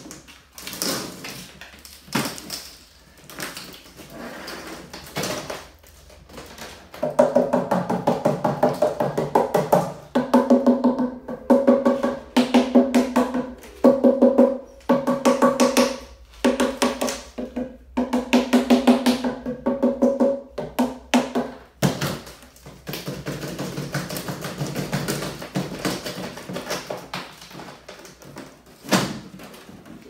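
A mallet is rapping a plastic hive mold to release a cast lightweight-concrete hive body from it. Fast runs of strikes, several a second, each ring out at the same hollow pitch, with short pauses between runs. Sparser, quieter knocks come at the start and in the last several seconds.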